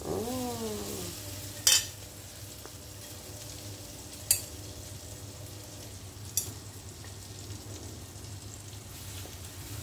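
Egg-dipped bread frying in butter in a pan, a steady soft sizzle, with three sharp clinks of a metal fork against a ceramic bowl as slices are dipped in beaten egg.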